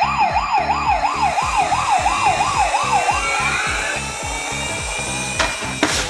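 Electronic siren of a toy ambulance mini car, a fast wail rising and falling about three times a second, stopping about three seconds in, over background music with a steady beat. Two sharp clicks near the end.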